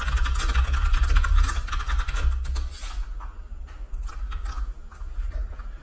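Typing on a computer keyboard: a quick run of keystrokes for about three seconds, then scattered clicks, over a steady low hum.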